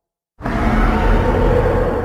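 Layered custom creature sound effect for an alien six-legged lizard: a long, low monster call built from animal and monster sounds, starting abruptly about half a second in and holding, beginning to fade near the end.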